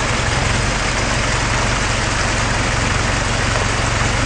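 Pickup truck engine running steadily at low revs as the truck crawls down a muddy bank into a creek in four-wheel drive, with a steady hiss over it.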